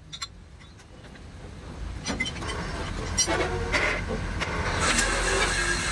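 Pillar drilling machine running and being brought down onto a large steel tube, with scattered metallic clinks and knocks. The machine sound builds up over the first couple of seconds and holds steady toward the end.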